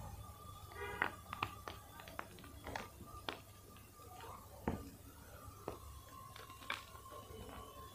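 Blocks of gym chalk crushed and crumbled between the fingers over a pile of chalk powder: irregular sharp crunches and crackles, about a dozen.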